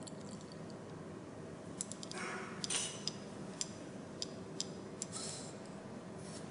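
Light, sharp clicks and ticks of a glass pipette against the metal extraction barrel of a fiber oil extractor as solvent is dispensed and the pipette is drawn out. There are about eight clicks scattered through the middle of the sound and two brief hissy rustles, all over a faint steady hum.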